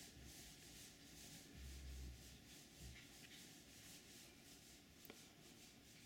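Faint, steady hiss of rain falling, with a brief low rumble about two seconds in and a single faint click near the end.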